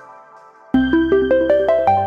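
OnePlus OxygenOS 14 ringtone playing. A previous tone dies away, then under a second in a new one starts abruptly: a quick rising run of bright synthesized notes, about seven a second, over a held bass note.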